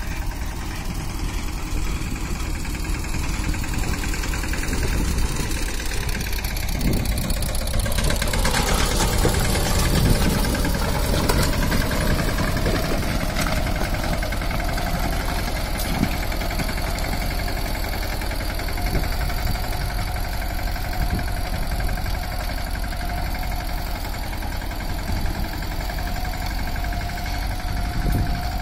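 Swaraj tractor's diesel engine running steadily under load while it pulls a rock-weighted box leveler over tilled soil. Its note dips and comes back up about nine seconds in.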